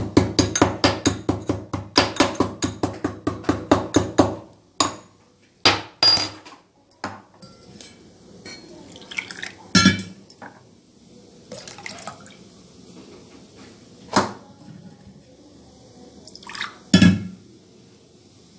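Pestle pounding in a mortar, crushing giloy stem, raw turmeric, cloves, black pepper and tulsi leaves: rapid, even strikes about four a second. The pounding stops about four seconds in, followed by a few separate clinks and knocks of kitchen utensils being handled.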